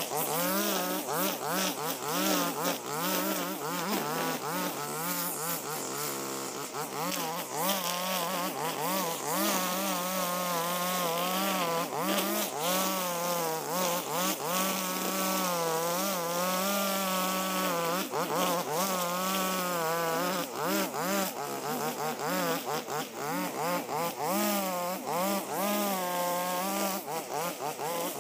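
Husqvarna 542RBS backpack brush cutter's 42 cc two-stroke engine running hard, its pitch rising and falling continuously as the 2.4 mm square nylon line cuts through tall, overgrown grass.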